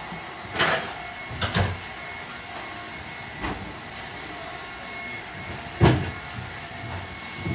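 A few sharp knocks and clunks of things being handled in a kitchen, the loudest near six seconds in, over a steady fan-like hum.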